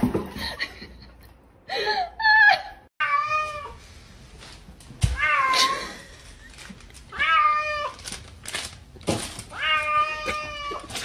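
Domestic cat meowing repeatedly, about six drawn-out meows a second or two apart.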